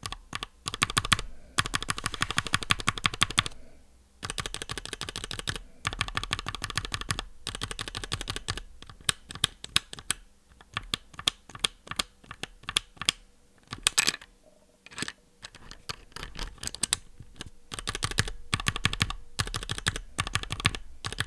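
Everglide Jade tactile mechanical keyboard switches being pressed over and over, in fast rattling runs for the first several seconds and then as slower, separate keystrokes. One switch is stock; the other has been spot-lubed at the stem top-out and fitted with a switch film to quiet its rattle.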